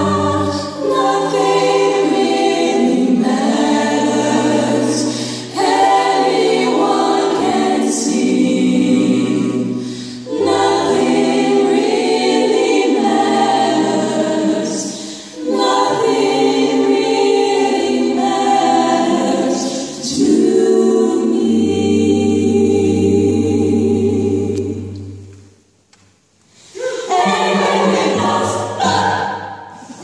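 Women's vocal ensemble singing close harmony into microphones, with a cello holding long low notes underneath. The music stops briefly near the end, then the voices come back in.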